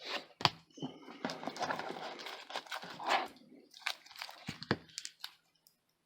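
Trading cards and their paper and plastic wrapping being handled: irregular crinkling and rustling with several sharp clicks, dying away about five and a half seconds in.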